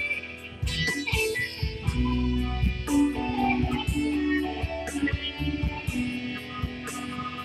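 Electric guitar being played: a run of picked notes and chords, with a steady ticking beat behind it.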